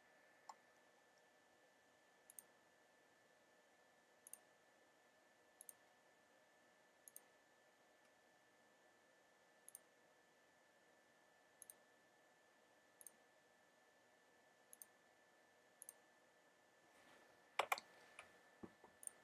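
Computer mouse button clicks, faint and mostly in quick press-and-release pairs, one every second or two, over a faint steady whine. A louder cluster of knocks comes near the end.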